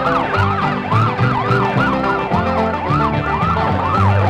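Emergency vehicle siren wailing rapidly up and down, about three rising-and-falling sweeps a second, over bluegrass banjo music.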